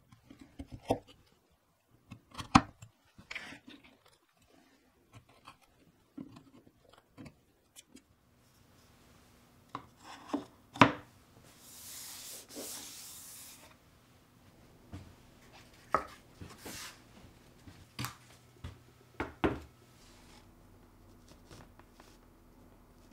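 A wood chisel cutting into plywood with a few sharp clicks, then scattered knocks of wooden and plastic parts being handled and set down. A short rubbing hiss, a hand sliding over the surface, comes about halfway through.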